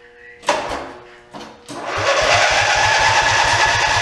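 A sharp clank, then from about a second and a half in the skid steer's engine cranking over on the electric starter, a fast even rhythm of compression strokes without catching. This engine has only weak spark.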